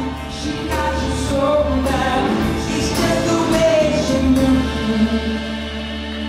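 Music: a pop band playing the opening of a song, with singing, swelling in loudness over the first few seconds.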